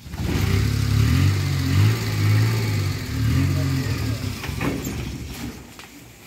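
An engine running with a low, steady drone that shifts pitch a few times, then fades away over the last second or two; a couple of sharp clicks near the end.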